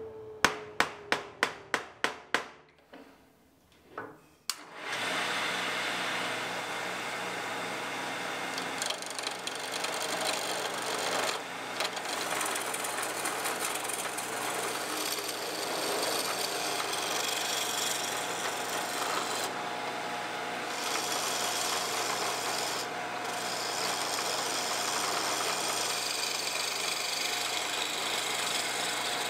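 Small wood lathe running while a turning tool cuts a spinning wooden handle blank: a steady hiss of cutting over the motor's low hum. It starts about five seconds in, after a quick run of about eight sharp taps and one knock as the blank is set on the lathe.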